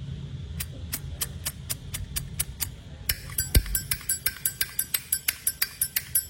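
Zippo lighter being handled: a steady run of small metallic clicks, about three a second, turning sharper and more ringing about halfway through, with one heavier knock about three and a half seconds in.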